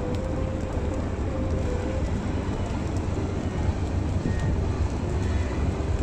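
Harbour tug's diesel engines running with a steady low rumble, with a few faint, brief higher tones over it.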